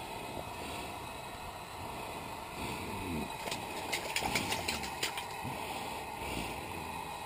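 A steady low rumble, with a quick run of about ten light clicks about halfway through.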